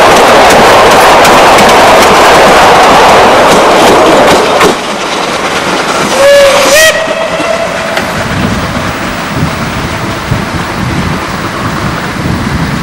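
Narrow-gauge steam train's coaches passing close with a loud rush and rattle of wheels. After a sudden drop in level, the 0-6-2 tank steam locomotive sounds its whistle about six seconds in: one note that wavers at first, then holds steady for about two seconds over the train's distant rumble.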